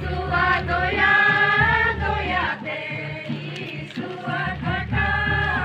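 A group of voices singing a slow song together, with long held notes.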